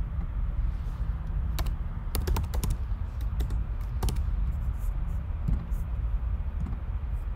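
Computer keyboard keystrokes: a quick run of clicks about two seconds in, then scattered single key clicks, over a steady low background hum.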